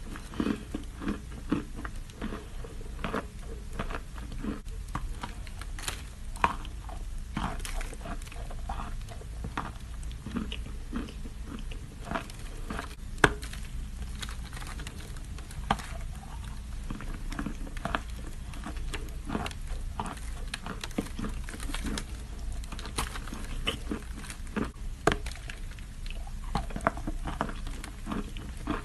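Close-up chewing of edible chalk: irregular crisp crunches and crackles as pieces are bitten and ground between the teeth.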